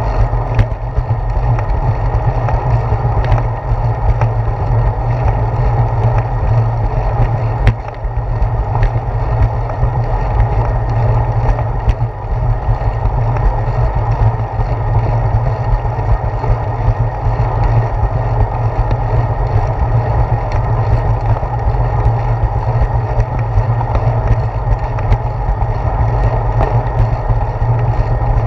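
Steady loud rumble of wind and road vibration picked up by a handlebar-mounted GoPro as a bicycle rolls along a concrete path, with a few short knocks as the tyres cross the slab joints.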